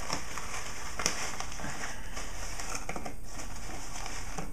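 Paper being folded and pressed down into a plastic deli container: soft rustling and crinkling with a few light ticks.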